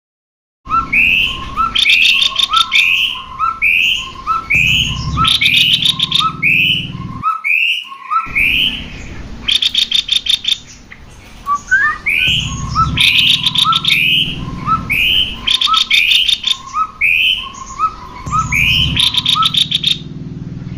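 Cucak kopi singing loudly in a repeating song: short rising whistled notes alternate with fast dry rattling trills, about one phrase a second. The song breaks off briefly about seven seconds in.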